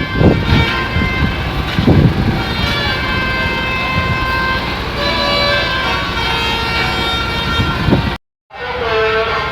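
Telolet musical air horns on tour buses sounding, several horn tones held and overlapping over the rumble of the bus engines. The sound cuts out for a moment near the end, then horn tones start again.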